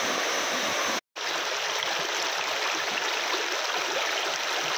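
Shallow rapids of a small rocky river, the water rushing and splashing over boulders in a steady roar. The sound drops out completely for a split second about a second in, then goes on with a little less low rumble.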